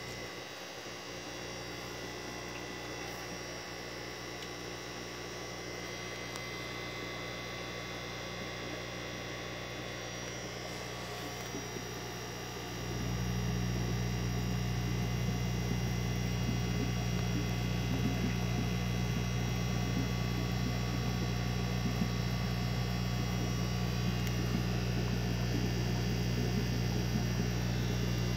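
Steady low electrical hum of running aquarium equipment, becoming louder about halfway through.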